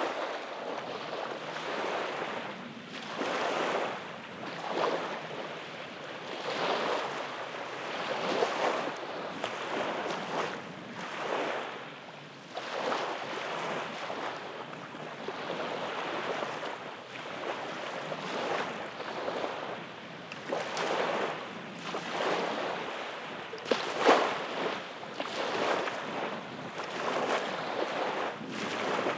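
Small waves lapping and breaking on a sandy beach, surging in every second or two, with one louder wave about three-quarters of the way through.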